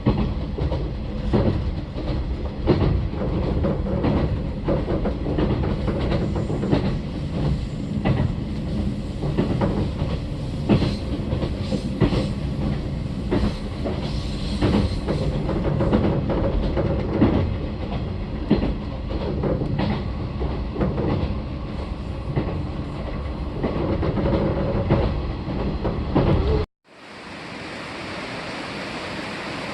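Running noise heard inside a moving Odoriko limited express train: a steady low rumble with frequent rail-joint knocks and clatter. Near the end it cuts off suddenly and is replaced by a steady, even rushing noise.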